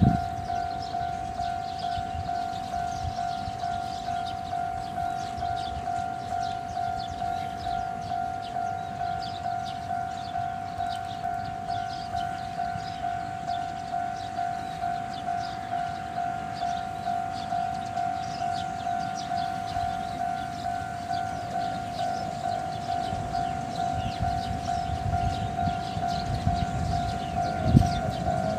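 Level-crossing warning bell ringing in a steady, even rhythm, a little under two strokes a second, warning that a sugar-railway train is coming. A low rumble builds under it near the end.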